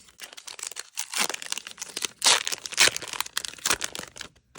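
Pokémon booster pack wrapper crinkling and tearing as it is opened by hand, in irregular crackles with two loud rips a little after the middle.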